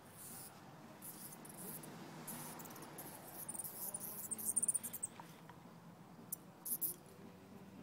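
Small dog snuffling and nosing through grass: short bursts of high-pitched rustling and clicking, loudest about four to five seconds in.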